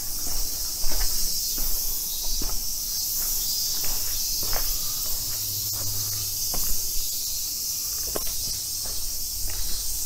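Footsteps walking at a steady pace on a paved path, under a constant high-pitched drone of insects.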